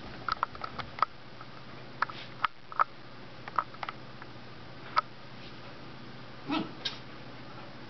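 Corgi puppy snuffling in short, scattered bursts as it rubs its face into a carpet and rolls on it after a bath, with one slightly longer, lower sound about six and a half seconds in.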